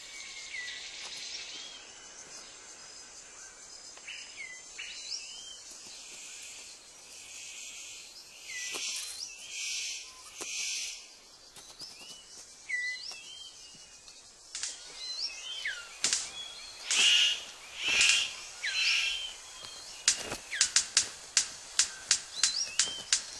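Bird-of-paradise display sounds: short curling chirps, several hissing bursts of noise lasting about a second each, and near the end a fast run of sharp clicks, about two or three a second.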